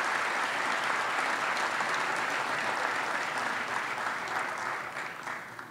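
Large audience applauding steadily, the clapping dying away near the end.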